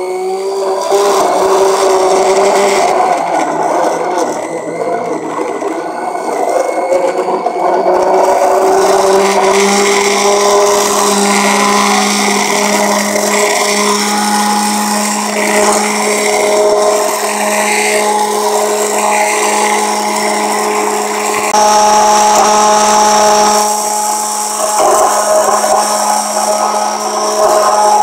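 Handheld immersion blender running in a glass bowl of soap batter: a steady motor whine whose pitch shifts slightly a few times as it blends the mixture smooth, bringing it toward trace.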